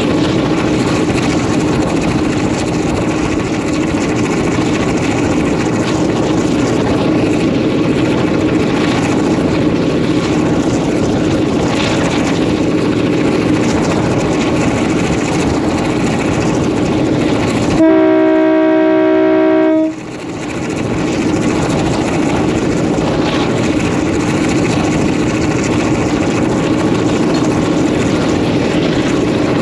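An EMD 567-series Roots-blown two-stroke diesel locomotive engine running steadily while the train is under way, heard close up from the locomotive's roof. About two-thirds of the way through, the locomotive's air horn sounds one loud blast of about two seconds.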